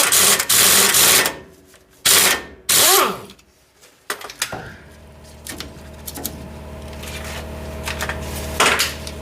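Steel open-end wrench working the nuts on new U-bolt studs, with quick rapid metallic rasping and clinking, then two short loud bursts. About four and a half seconds in, a steady low hum starts and runs under scattered light clicks.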